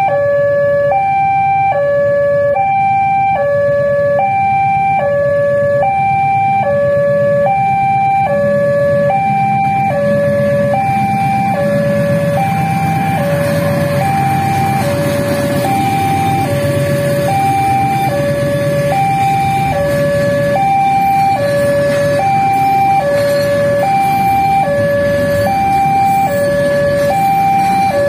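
Railway level-crossing warning alarm sounding a two-tone electronic signal, switching between a high and a low note about once a second. Under it runs the low rumble of a passing freight train hauled by a KAI CC 206 diesel-electric locomotive, strongest around the middle.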